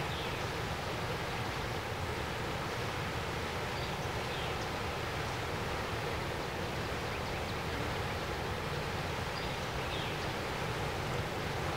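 Steady rushing of river water over rapids, an even noise that does not change.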